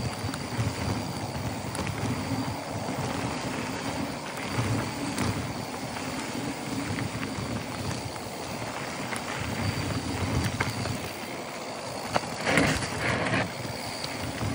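Mountain bike rolling fast down a dry dirt trail: knobby tyres crunching over dirt and loose gravel, the bike rattling over bumps, with wind on the microphone. A louder rough patch of rattling comes about three quarters of the way through.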